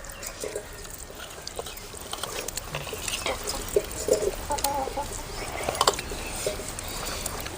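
Chickens clucking in short, repeated calls, with scattered light clicks in between.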